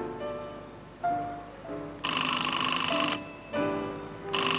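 A payphone ringing in two rings, the first starting about two seconds in and lasting about a second, the second starting near the end, over background music.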